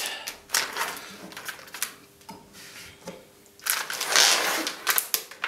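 Thin clear plastic film crinkling and crackling as it is peeled off a plastic tub, in scattered sharp crackles with a longer, louder rustle about four seconds in.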